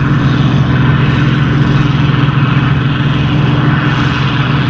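Combine harvester running at work: a steady engine hum with the rushing of its threshing machinery.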